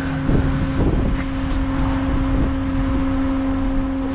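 Off-road SUV engine running as the vehicle drives away over rough dirt, with a low rumble and wind on the microphone. A steady hum sits underneath.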